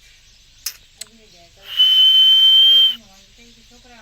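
Indian green parrot (rose-ringed parakeet) giving one long, steady, high whistle with a breathy hiss, lasting about a second, after two short clicks.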